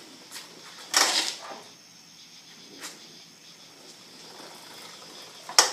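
A few sudden pops over a steady faint background: a loud one about a second in, a short one near the middle and a sharp one near the end. This is the strange popping from a Yamaha FZ6, heard close to the airbox and felt on the left side of the frame.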